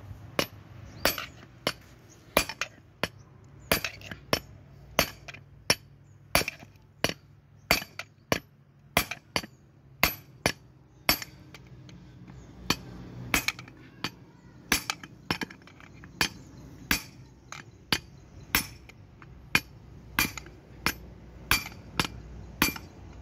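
Hammer striking a steel drift set against a bearing in a combine's bearing housing, an even series of sharp metallic clinks about one and a half blows a second.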